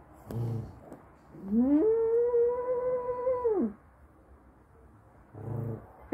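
Dog howling: one long howl of about two seconds that slides up, holds steady and drops away at the end, with a short low woof-like sound before it and another after it.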